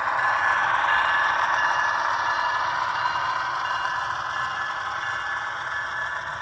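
HO scale model freight cars and locomotive rolling along model track, a steady rattling run of wheels on rail that is loudest about a second in and slowly eases off.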